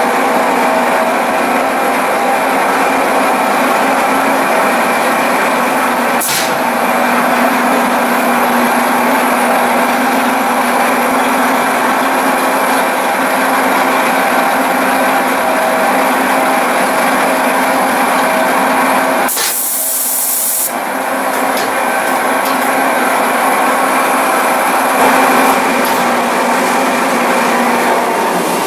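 Large engine lathe running, its chuck spinning a metal workpiece: a steady machine hum with held tones. A brief hiss about two-thirds of the way through.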